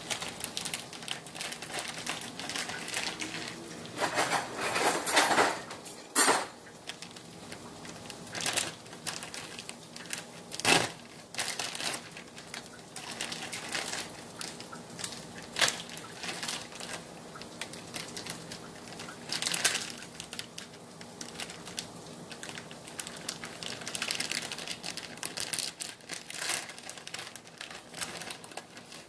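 Food-prep handling in a kitchen: crinkling of plastic packaging with scattered clicks and clinks of dishes and utensils, in irregular bursts while fajitas are put together.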